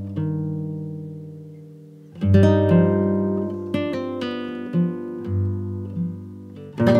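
Background music: an acoustic guitar playing plucked notes over ringing chords, with new chords struck about two seconds in and again near the end.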